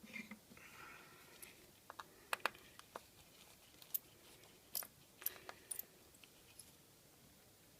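Small screwdriver working a stuck screw in a Samsung Galaxy S4's housing: a scatter of faint light clicks and ticks of metal on screw and plastic, dying away about six seconds in.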